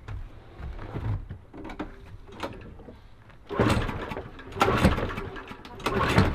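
Three pulls on a lawnmower's recoil starter cord, each cranking the Briggs & Stratton engine for about half a second. The engine does not catch and run between or after the pulls.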